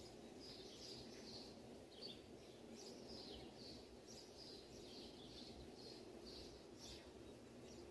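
Near silence, with faint high bird chirps repeating a few times a second and a soft click about two seconds in.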